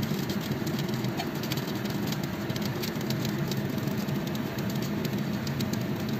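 Rotisserie oven running with a steady low hum from its motor and fan, with fine crackles of chicken fat sizzling as the bird roasts on the spit.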